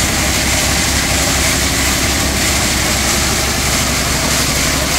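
A portable drum concrete mixer running steadily, its engine chugging at a constant speed.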